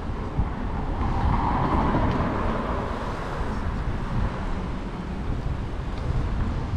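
Street traffic: cars driving through an intersection close by, with engine and tyre noise over a steady low rumble. One passing vehicle is loudest about one to two seconds in.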